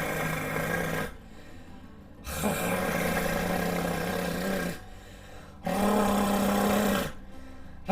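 A person holding a voiced rolled R (alveolar tongue trill), a rough buzzing rattle over a steady hum. It is held three times with short pauses between, each a little higher-pitched than the last. It is the tongue-trill practice sound, with the snore-like vibration carried forward to the tongue tip.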